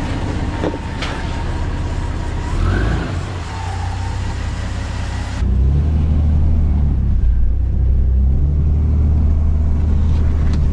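Toyota LandCruiser engine running as the 4x4 crawls along a rough bush track. About five seconds in the sound changes to a louder, steady, deep rumble heard from inside the cab as it drives slowly uphill.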